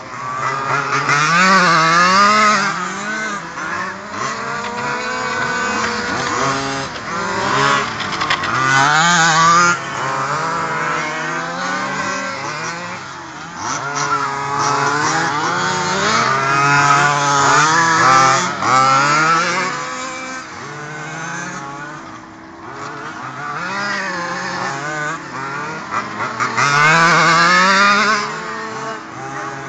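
Several radio-controlled cars' small engines revving up and down at once as they lap the track, each pitch rising and falling with throttle, swelling louder several times as cars pass close.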